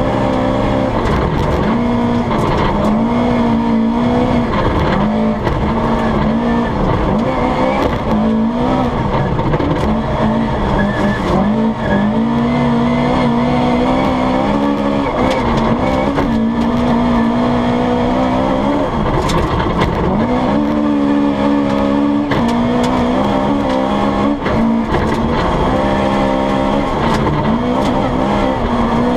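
Onboard sound inside a Toyota Corolla GT rally car driven flat out on a snowy stage: the engine revs hard, climbing and dropping again and again through gear changes and lifts, over steady tyre and road noise.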